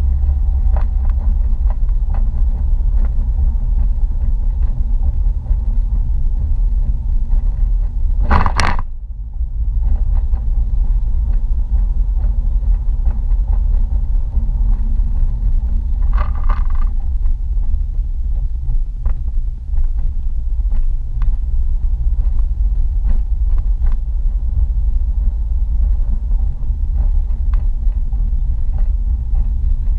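Steady low road and engine rumble inside a moving car's cabin, with one sharp knock about eight seconds in and a brief higher-pitched sound a little past halfway.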